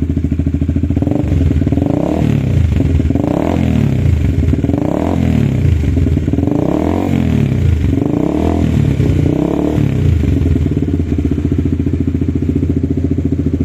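Honda CBR150R's single-cylinder engine breathing through a Creed aftermarket racing exhaust with its dB killer removed, idling and blipped about six times in quick succession, each short rev rising and falling back to idle.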